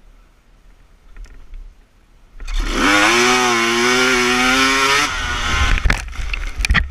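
Dirt bike engine revving hard as the bike launches off the start: the pitch climbs sharply about two and a half seconds in and holds high for a couple of seconds. The engine note cuts off abruptly, and the bike goes down in a crash with several knocks and thuds near the end.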